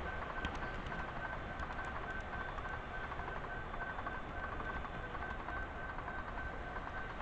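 Model train running along its track, heard from a camera riding on it: a steady rolling and motor noise with a thin, evenly pulsing high whine, and a few faint clicks about half a second in.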